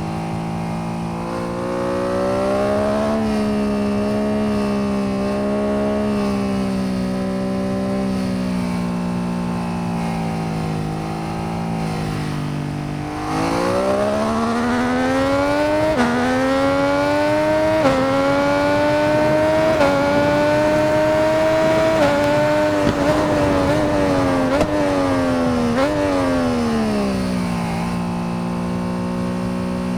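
MV Agusta 800 RR's three-cylinder engine running under way, holding a steady pitch at first. About halfway through it accelerates hard, the pitch climbing with several sudden dips as gears change. Near the end it eases off and the pitch falls.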